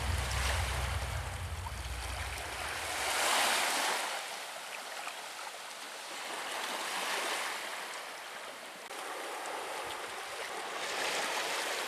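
Small sea waves breaking and washing up on the shore, swelling about every four seconds, three times. Wind rumbles on the microphone for the first few seconds.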